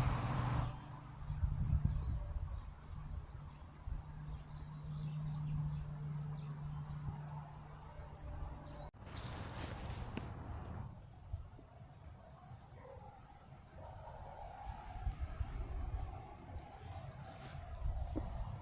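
Crickets chirping in a steady, even rhythm of short high pulses, several a second, with a break about nine seconds in before they resume.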